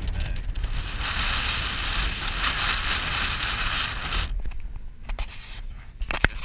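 Wind rushing over a camera mounted on the outside of a moving car, with a low buffeting rumble and road noise. The hiss drops away about four seconds in, and a few sharp clicks follow near the end.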